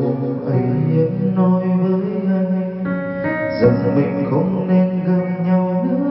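Karaoke backing music with a man singing into a wireless microphone, both played loud through a Ronamax MV18 trolley karaoke speaker with a 15-inch bass driver.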